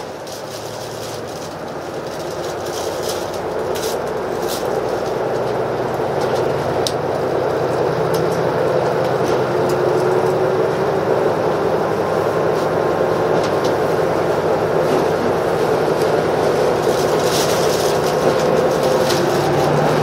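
Passenger-cabin sound of a KiHa 85 series diesel express railcar pulling out of a station. The diesel engines' drone builds over the first several seconds and then holds steady, with a few scattered clicks and creaks.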